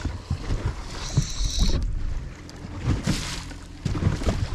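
Water slapping and knocking against a boat's hull, with wind noise, while a hooked walleye is played on a spinning rod. The spinning reel gives a short high whir about a second in.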